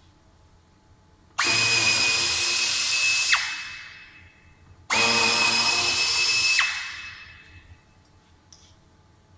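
Cordless drill/driver run twice in two bursts of about two seconds each, with a steady high whine; after each release the motor spins down and fades.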